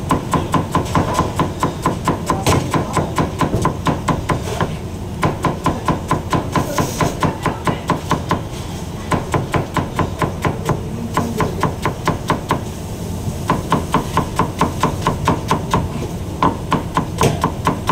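Chef's knife dicing onion on a cutting board: rapid, even chopping strokes of the blade hitting the board, several a second, in runs broken by a few short pauses.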